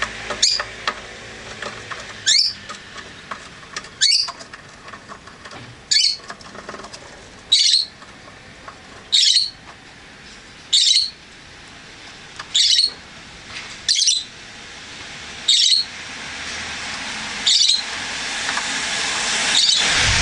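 Peach-faced lovebird giving short, sharp, high-pitched calls, about a dozen in a steady rhythm, one every second and a half to two seconds. A steady noise swells under the calls near the end.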